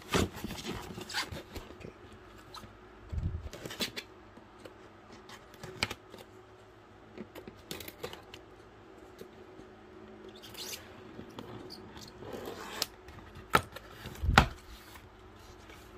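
Cardboard and plastic packaging being handled, with rustling, scraping and scattered clicks and a couple of dull knocks.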